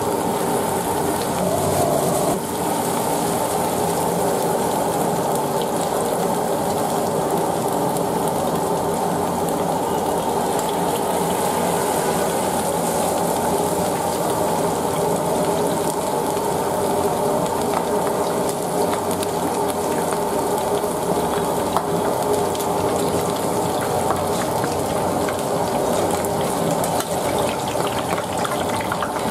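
Battered chicken feet deep-frying in a wok of hot oil, a steady bubbling sizzle.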